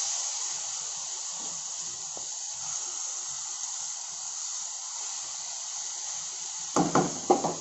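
Amaranth (tandulja) greens with garlic frying in oil in a steel kadhai, a steady sizzle as they are stirred with a wooden spatula. A few brief louder sounds come near the end.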